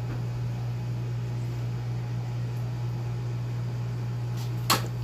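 A steady low hum, with one sharp click near the end.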